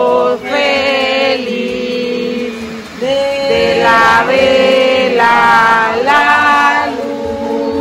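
Voices singing a song together in long, held notes, women's voices the most prominent.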